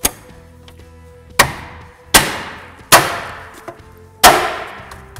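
Plastic wheel cover being struck by hand to snap it onto the wheel: a light knock, then four sharp, loud knocks under a second apart, each ringing briefly.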